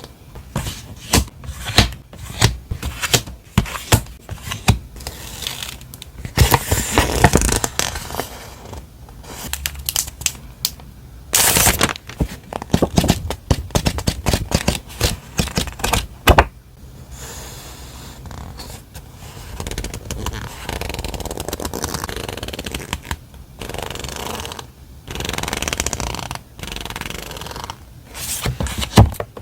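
Stationery being unpacked and handled by hand: paper and plastic packaging rustling and crinkling, with many sharp taps and clicks as items are picked up and set down.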